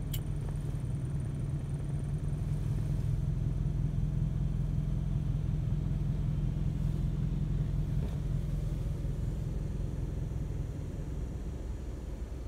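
A car's engine and road noise heard from inside the cabin while driving on a wet road: a steady low rumble that eases a little near the end. A brief click sounds right at the start.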